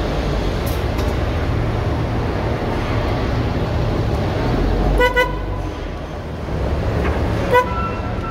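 Rail vehicle rumbling steadily along, its horn giving a quick double toot about five seconds in and one more short toot near the end. A steady high whine starts just after the last toot.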